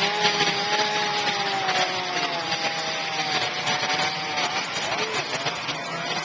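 Chainsaws running, with a high whine that wavers a little in pitch over a steady buzzing rasp.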